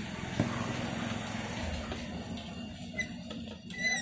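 Short high squeaks from the geyser's new heating element as its metal mounting flange is turned and tightened down by hand, a faint one about three seconds in and a louder one near the end. A light click about half a second in.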